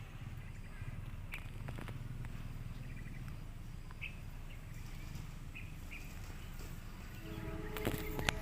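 Low rumble with a few short bird chirps; about seven seconds in, a CC 201 diesel locomotive's melodious multi-tone horn starts sounding a steady chord of several notes.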